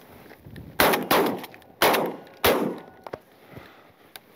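Three shotgun shots, the second about a second after the first and the third quickly after that, each trailing off briefly; the shots miss, with no duck down.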